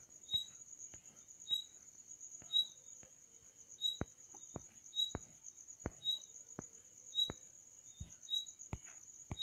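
Faint, steady high-pitched trill of crickets, with a short chirp about once a second. Soft clicks come every second or so, mostly in the second half.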